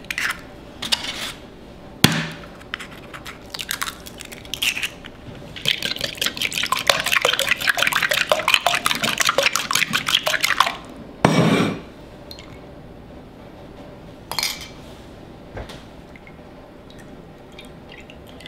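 Eggs being cracked and beaten in a small glass bowl: a sharp crack about two seconds in, then a fork clicking rapidly against the glass for about five seconds as the eggs are whisked, followed by a short dull knock.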